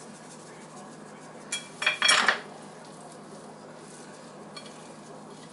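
A click about one and a half seconds in, then a short clinking clatter of a seasoning shaker being handled over a plate, with a faint tick later on.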